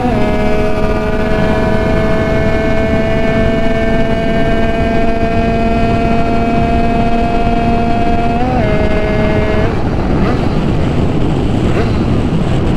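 Tuned 80cc Italkit two-stroke Derbi motorcycle engine running hard at high revs on the road, its pitch slowly climbing, with a quick gear change right at the start and another about eight and a half seconds in. About a second after that the engine note drops away, leaving wind rush on the microphone.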